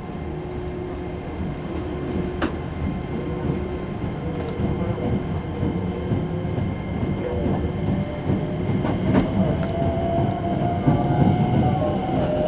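Hankyu electric train running, with a motor whine that rises slowly in pitch from about halfway through as the train picks up speed. A few sharp clicks from the wheels and rails are heard over a steady rumble.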